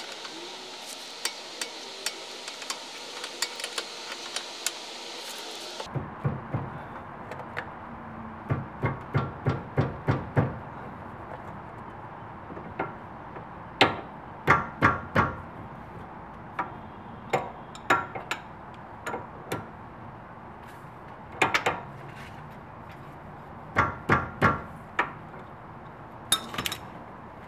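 Wrench clinking on the inner tie rod joint of a BMW E46 steering rack: sharp metal clicks, some in quick runs of about two a second, as the tie rod is worked by hand.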